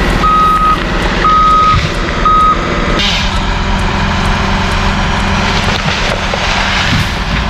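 Backup alarm on a work vehicle beeping at one steady pitch, about once a second, three beeps, over a running engine. The beeping stops about three seconds in and the engine keeps running.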